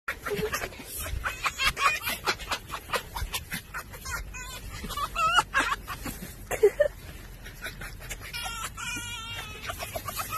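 Red foxes chattering and cackling in quick runs of short sharp calls, with wavering whine-like calls about five seconds in and again near nine seconds; excited, playful vocalising.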